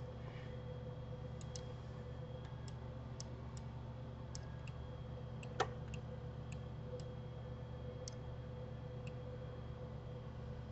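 Sparse, faint computer mouse clicks at an irregular pace, with one louder click about five and a half seconds in, over a steady low electrical hum.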